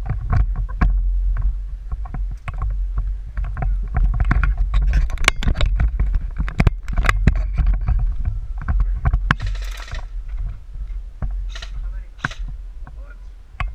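Airsoft guns firing in scattered, irregular sharp snaps and clicks over a heavy low rumble of wind and handling on the microphone, with a couple of short hissing bursts in the second half.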